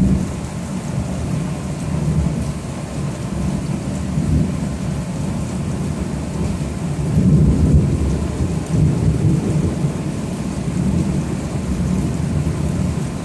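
Thunderstorm: thunder rumbling and rolling, swelling loudest about seven seconds in, over the steady hiss of rain.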